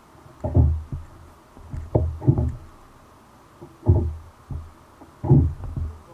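Dull, low knocks against a kayak hull, recurring about every second and a half.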